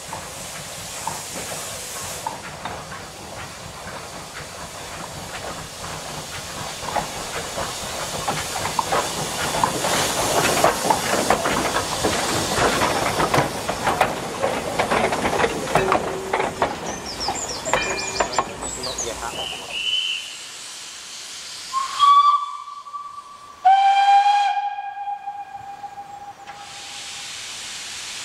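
Small industrial steam tank locomotives hauling a goods train past close by: exhaust hiss with rapid clanking of rods and wheels over rail joints, building to a peak as they pass, then dropping away. Near the end come two steam whistles, a short higher blast and then a longer, lower one that sags slightly in pitch.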